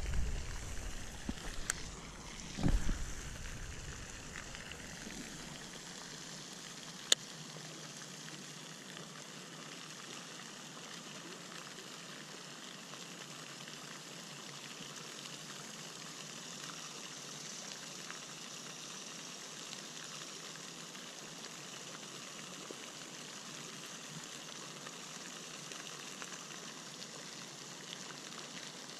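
Steady, faint splashing hiss of a pond's aerator fountain. A few low handling knocks in the first three seconds and one sharp click about seven seconds in come from a baitcasting reel being handled.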